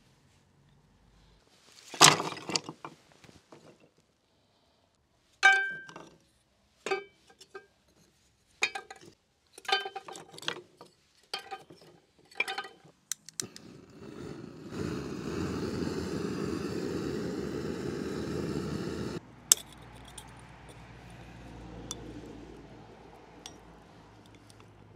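Glass and china being handled: a loud clatter about two seconds in, then a string of separate clinks, several ringing briefly. Later a steady rushing noise lasts about five seconds and cuts off suddenly, followed by one sharp click.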